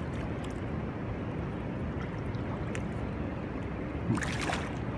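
Steady rushing of river water in the tailwater below a dam, an even wash of noise with no engine tone. About four seconds in comes a brief knocking clatter.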